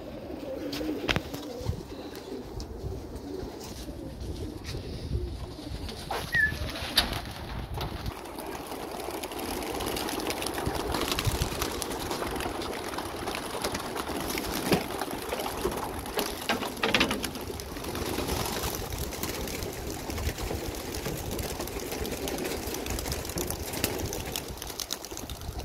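Domestic homing pigeons cooing at the loft, then from about nine seconds in a flock taking off and circling, a dense rustle of many wingbeats over the continued cooing.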